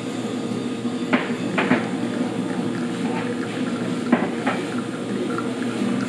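Espresso machine running with a steady hum as a shot pours, with several sharp clinks and knocks of cups and dishes, the loudest about four seconds in.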